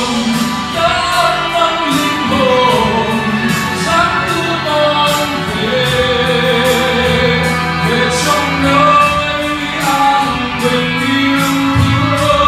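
A man singing a Christian song into a microphone over a recorded backing track, with a steady beat in the accompaniment.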